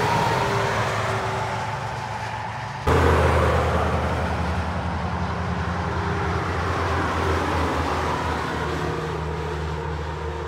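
Heavy trucks passing on a motorway: a low engine drone under tyre and road noise. About three seconds in, the sound jumps abruptly to a louder truck engine, which then slowly fades.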